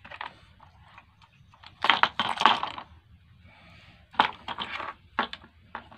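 Hands handling the opened induction cooker's plastic casing and wiring: several short bursts of clattering and rustling, the loudest about two seconds in and more near the end.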